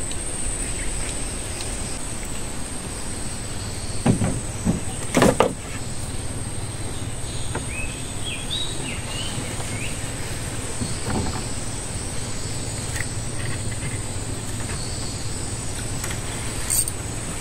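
Outdoor ambience: a steady high-pitched insect drone over a low continuous hum, with two short loud knocks about four and five seconds in and a few brief high chirps in the middle.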